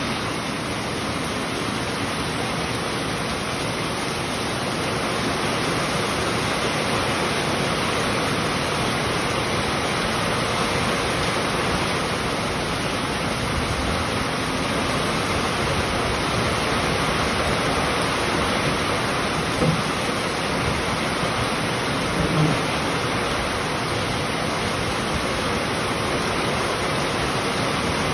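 Heavy rain pouring down steadily: an even hiss of falling water on the yard, trees and wooden deck. Two brief, light knocks come about two-thirds of the way in.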